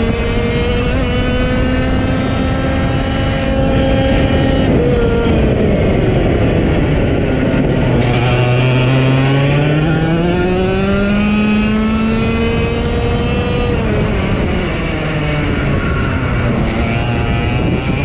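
Race car engines running laps on a short oval track, the engine pitch dropping away and climbing back in long sweeps, twice.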